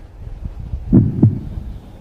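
Heartbeat sound effect: one double beat, lub-dub, about a second in, over a low rumble.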